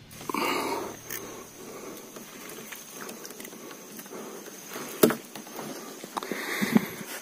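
Baitcasting reel being wound, a faint irregular ticking, under a steady high-pitched whine, with one sharp knock about five seconds in.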